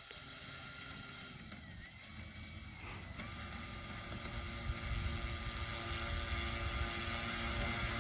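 Electric motor and propeller of a Hangar 9 Cub RC model plane taxiing on grass: a whine of several steady tones that rises in pitch about three seconds in as throttle is added, then holds steady and grows louder as the plane comes closer.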